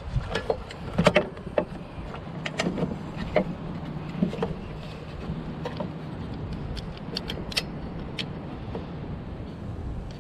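Sharp metallic clicks and taps of hand tools and parts as a replacement electric starter motor is fitted to a small engine, with a quick cluster about a second in, over a steady low hum.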